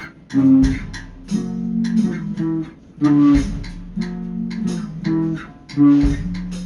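Background music led by plucked guitar over a bass line, a short phrase repeating about every three seconds.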